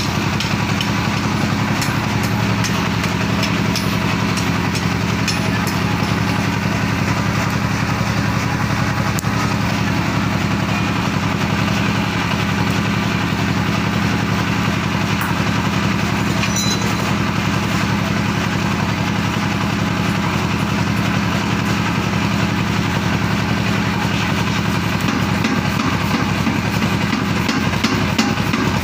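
Blacksmith's power forging hammer running steadily, with a fast, even pulse.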